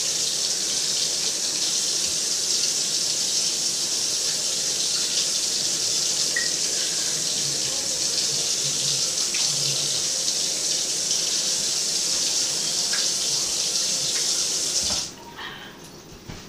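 Kitchen tap running in a steady full stream, filling a container to the top. The water shuts off abruptly about fifteen seconds in, and a few faint knocks follow.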